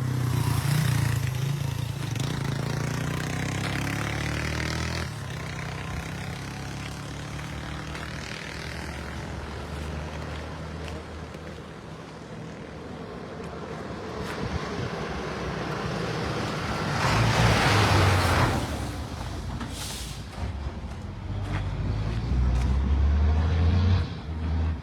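Road traffic going past close by: the low drone of truck and car engines, loudest at the start and near the end, with a loud rushing hiss of about two seconds as a vehicle passes about seventeen seconds in.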